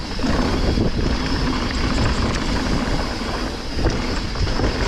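Wind buffeting the microphone as a downhill mountain bike rides fast down a dirt trail, its tyres rumbling over the ground, with a few knocks and rattles from the bike over bumps.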